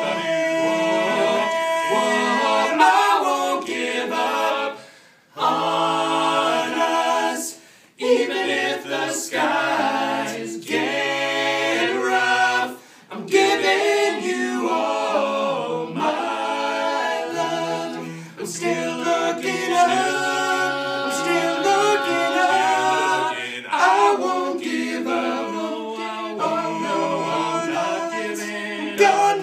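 Male a cappella quartet singing in harmony, several voices together with no instruments, broken by a few sudden short stops.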